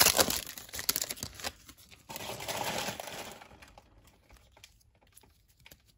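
Foil wrapper of a Topps baseball card pack crinkling and tearing open for about the first second and a half, with a second, softer rustle a couple of seconds in. After that there are only a few faint ticks as the stack of cards is handled.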